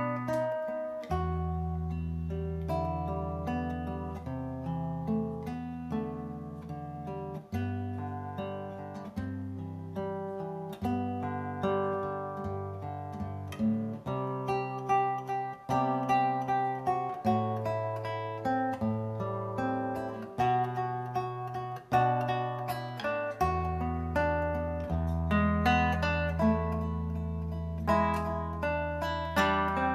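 Solo nylon-string classical guitar played fingerstyle: a picked melody over bass notes that ring on for several seconds at a time.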